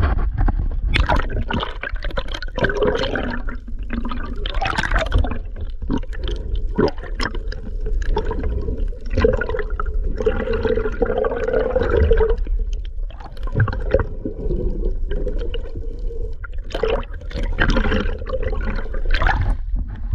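Water splashing and sloshing in irregular surges, over a steady low rumble.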